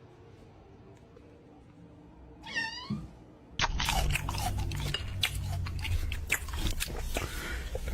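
A cat gives one short meow, then a louder run of dense clicks and crackling over a low rumble.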